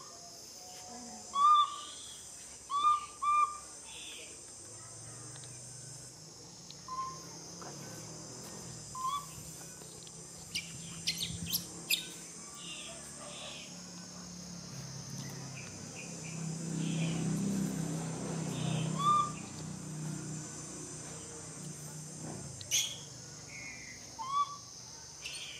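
Steady high drone of insects, thinning out for a while in the middle, with short loud chirping calls scattered through it, the strongest in the first few seconds. A low hum swells and fades in the middle.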